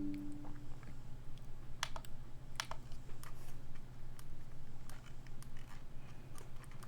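Keys being pressed on a Boardsource LULU mechanical split keyboard: scattered, irregular key clicks, a few each second.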